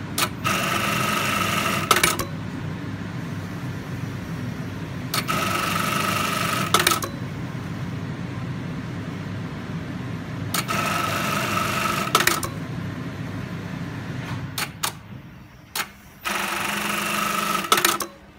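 GDB-430D bar tacking sewing machine sewing four bar tacks. Each is a burst of rapid stitching with a whine, just under two seconds long, ending in a sharp click. A steady hum runs between the tacks.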